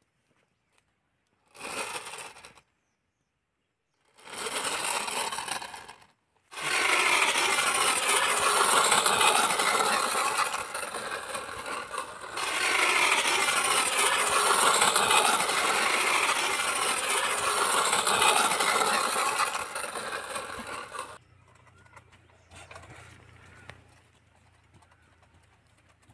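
Plastic toy double-decker bus whirring as it is pushed along dirt by hand: two short pushes, then a long stretch of steady whirring for about fourteen seconds that stops suddenly.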